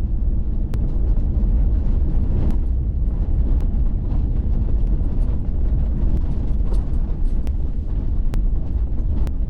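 Waterfall rushing: a loud, steady noise, heaviest in the deep low end, with a few faint ticks of splashing water.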